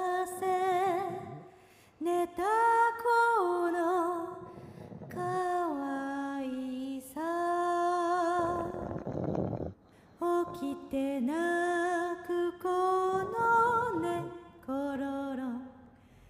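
Background music: a slow, lullaby-like vocal melody of long held notes, hummed, with short pauses between phrases.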